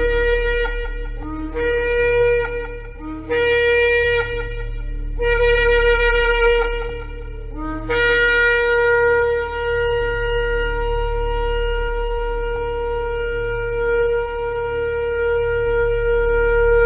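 Shofar (ram's horn) blown in a series of blasts. Four blasts of about two seconds each come first, each starting on a low note and jumping up to the main note. Then, about eight seconds in, one long blast starts and is held for about nine seconds.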